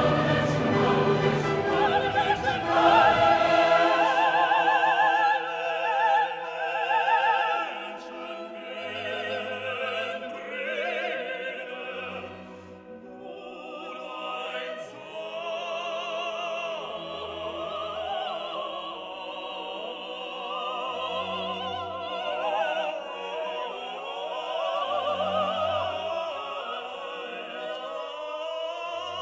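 Background music: classical operatic singing with orchestra, the voice held in long notes with a wide vibrato, fuller in the first few seconds and softer after that.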